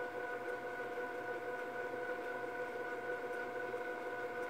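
Panasonic NV-MS1 S-VHS camcorder fast-forwarding an E180 VHS cassette: the tape transport gives a steady whine made of several even pitches over a light hiss.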